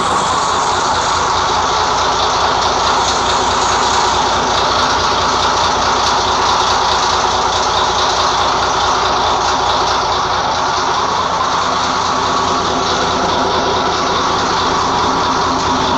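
Large Caterpillar marine diesel engine running steadily, a loud, even drone with a fast pulse that does not change.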